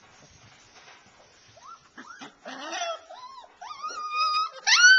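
Alaskan Malamute puppies whining and whimpering: a string of high-pitched cries that rise and fall, starting about a second and a half in and growing louder, with a long, steady high whine near the end.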